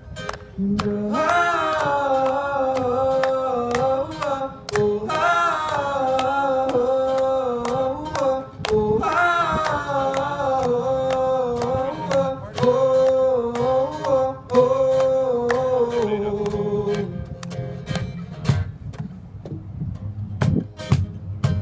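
Wordless singing in long held, sliding notes over acoustic guitar strumming. The voice stops about three-quarters of the way in, leaving the strummed guitar alone.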